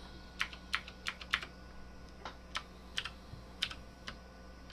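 Computer keyboard keys clicking: about a dozen sharp, irregularly spaced taps over a faint steady low hum.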